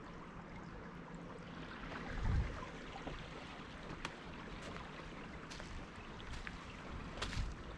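Footsteps crunching on dry leaf litter and twigs at walking pace, over a steady outdoor hiss, with a gust of wind buffeting the microphone about two seconds in.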